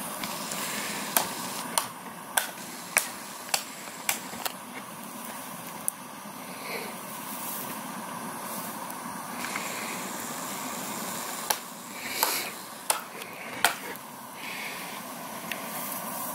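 Axe chopping branches off a felled spruce: a run of sharp strikes about every half second, then a few scattered strikes later on.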